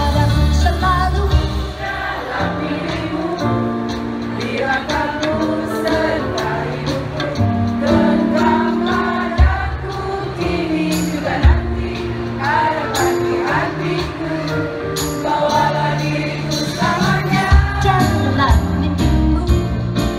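A woman singing live into a microphone, backed by a band with guitars and drums.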